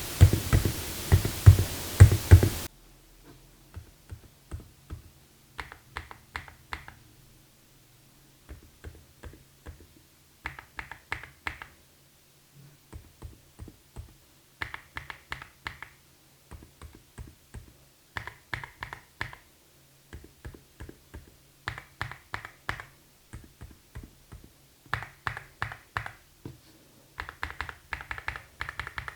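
Typing on a mechanical keyboard with silent linear switches: short runs of muted, soft keystrokes, with pauses of a second or two between runs. Music plays for the first two or three seconds, then cuts off suddenly.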